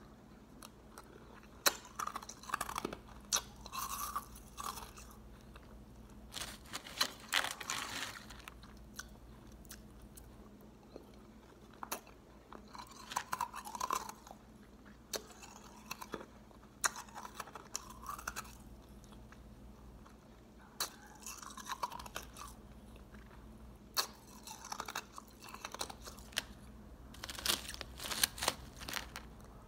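Crushed ice being chewed close to the microphone: sharp, crackling crunches come in repeated bouts of a second or two, with short pauses between them.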